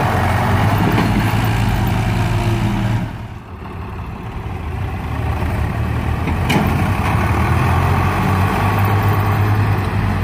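Diesel tractor engines running hard under load as one Swaraj tractor pulls another, stuck in mud with its trolley, by a chain. The sound drops briefly about three seconds in, then builds back up, with a single sharp knock about six and a half seconds in.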